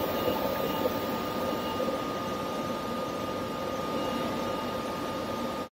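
ÖBB class 1116 Taurus electric locomotive at the head of a Railjet, standing with its cooling fans and electrics running: a steady whirring hum with a steady high whine over it. It cuts off suddenly at the very end.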